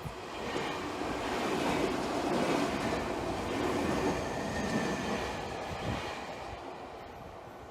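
Keio 1000-series electric commuter train passing close by at a level crossing: the running noise of its wheels on the rails swells over about two seconds, holds, and fades away near the end.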